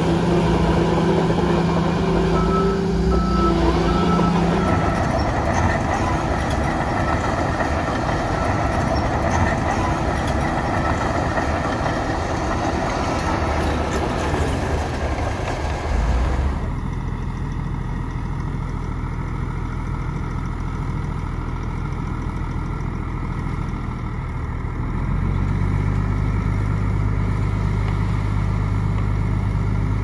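Heavy diesel engines of earthmoving machines (bulldozer and dump truck) running under work, with a reversing alarm beeping a few times near the start. About halfway through the sound turns duller, and near the end the engine speeds up and grows louder.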